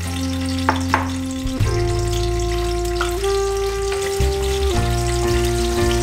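Garlic cloves sizzling in oil in a frying pan, a fine steady crackle, with two light clicks about a second in. Background music of slow sustained chords plays over it.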